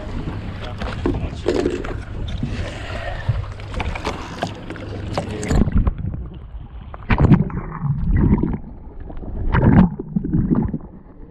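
Wind and water noise on a small fishing boat at sea over a low steady hum, with a few heavy knocks in the second half.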